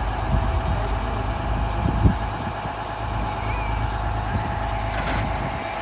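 Detroit Diesel 6V92TA two-stroke turbocharged V6 diesel engine of an FTF logging truck running steadily, with a single short knock about two seconds in.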